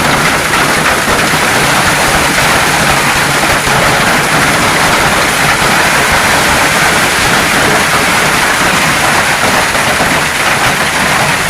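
Hail and heavy rain drumming on a car's roof and windows in a steady, dense clatter.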